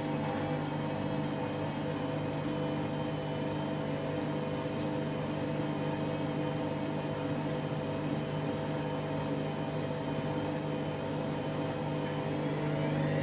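Washing machine motor running steadily with a bedding load in the drum, a hum made of several steady tones. Near the end the pitch begins to rise as the drum starts to speed up.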